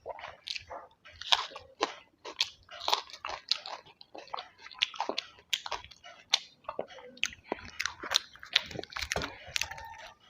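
Close-miked eating: a person biting and chewing crunchy food, with sharp irregular crackles several times a second.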